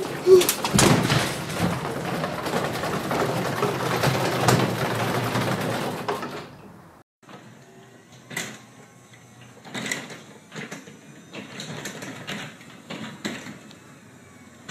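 Garage door opener running, a loud rattling mechanical noise as the door travels, which cuts off abruptly about six and a half seconds in. After that come only quieter scattered clicks and taps.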